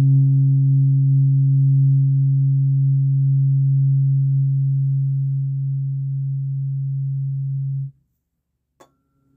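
Heart chakra tuning fork ringing with one low, steady hum and a fainter overtone above it, easing off slightly over the seconds. It cuts off suddenly about eight seconds in, and a faint click follows.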